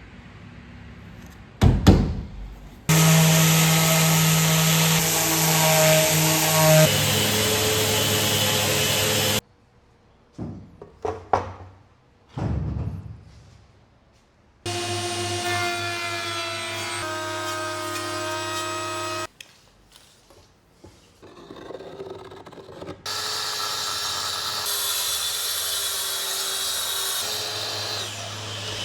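Woodworking power tools running in several separate stretches that start and stop abruptly, each a steady whine with a held pitch, with knocks and handling noises in the short gaps between.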